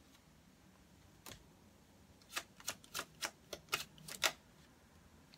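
A deck of tarot cards shuffled by hand: one sharp snap, then a quick run of about eight clicks, roughly four a second, as packets of cards are dropped from one hand into the other.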